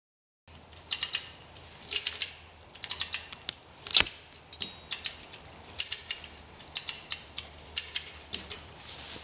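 Hand-cranked cable winch ratcheting as its handle is worked: clusters of sharp pawl clicks about once a second while the cable is drawn tight to lever an oak's roots out of the ground. There is one sharper, louder click about four seconds in.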